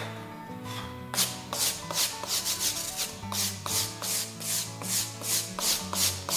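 Small hand brush scrubbing back and forth over brick, about three strokes a second starting about a second in, over quiet background music.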